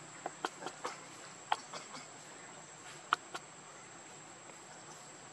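Steady high-pitched insect drone, with a handful of sharp clicks over the first three and a half seconds, the loudest a little after three seconds.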